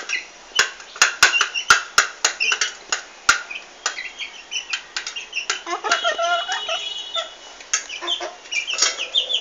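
Young chickens cheeping and clucking. Through the first three seconds or so there is a run of sharp taps, beaks pecking at food on the tiled floor. The clucking grows busier about halfway through.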